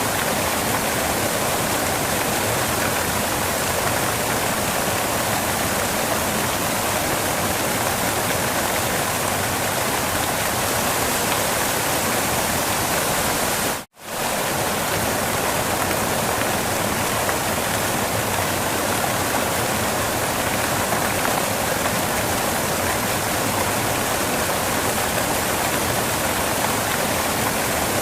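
Steady rush of water falling at a waterfall. It dips out to near silence for a moment about halfway through and comes straight back.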